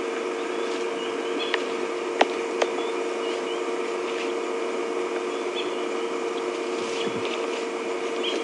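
Nyala chewing a dry tortoise shell: sharp cracks and crunches, three loud ones close together between about one and a half and two and a half seconds in, over a steady low hum.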